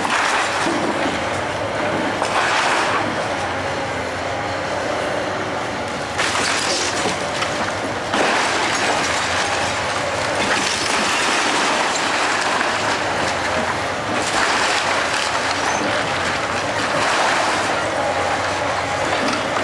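Komatsu hydraulic excavator running as its bucket tears into a house wall, with steady rattling and clattering of breaking wood and falling debris. Sudden louder crashes come about six and eight seconds in.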